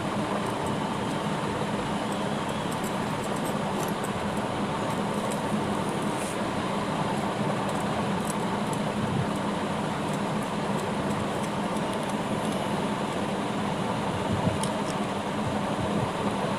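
Steady droning hum and hiss throughout, with a few faint small clicks from a screwdriver turning screws in a fog lamp's metal mounting bracket.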